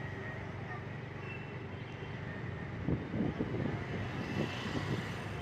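Steady vehicle rumble, with irregular louder rough bursts starting about three seconds in.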